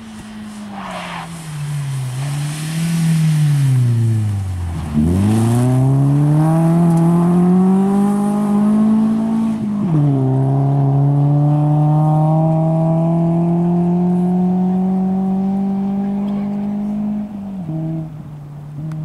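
Rally car engine slowing into a corner, with the revs falling to their lowest point about five seconds in. It then accelerates hard away: the revs climb, drop at a gearshift about halfway through, and climb steadily again before easing off near the end.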